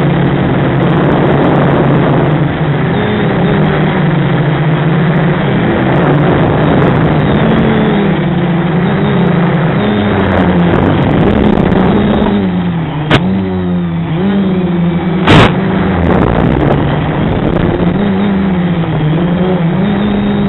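Deadcat-frame FPV quadcopter's SunnySky brushless motors and propellers buzzing loudly, the pitch swinging up and down as the throttle changes in flight. Two sharp knocks cut through it about 13 and 15 seconds in, the second louder.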